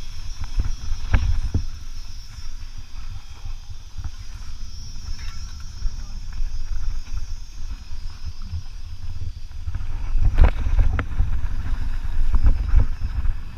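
Mountain bike descending a rocky trail: a steady low rumble of wind on the microphone and tyres on dirt, with sharp clattering knocks as the bike hits rocks and drops, the heaviest about ten to eleven seconds in.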